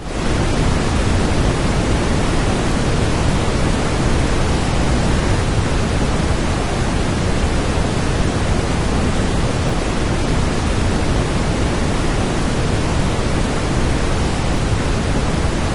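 Waterfall: a loud, steady rush of falling water, an even roar with no breaks, cutting in abruptly at the start.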